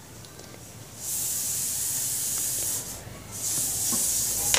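Gravity-feed steam iron hissing out steam in two bursts, each one to two seconds long, the second starting about three seconds in.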